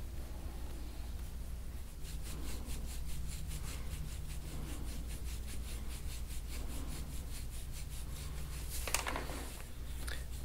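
Quick, evenly spaced scraping strokes of a handheld scraping tool rubbed over the skin of the neck, several a second, starting about two seconds in, over a low steady hum.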